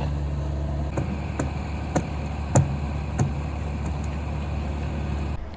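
Cat 305 mini excavator's diesel engine running steadily, with several sharp knocks about half a second to a second apart; the engine sound cuts off suddenly near the end.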